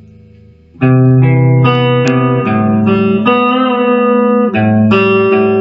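A guitar picking a short riff of single notes, starting about a second in, each note ringing on under the next.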